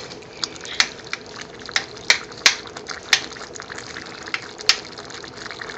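A metal spoon stirring thick, creamy curry gravy in a steel pan: wet slopping of the sauce, with a dozen or so irregular sharp clinks of the spoon against the pan.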